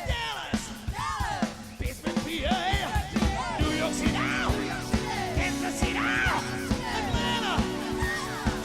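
Live soul band playing, with drum hits and a singer's wordless shouts over the music; a held chord comes in about three and a half seconds in.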